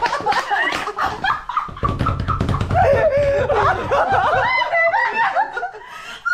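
A group of people laughing loudly together, several voices overlapping in giggles and shrieks of laughter.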